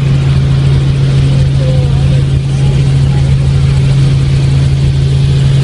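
Helicopter in flight, heard from inside the cabin: a loud, steady drone of engine and rotor with a constant low hum and a pulsing rumble beneath it.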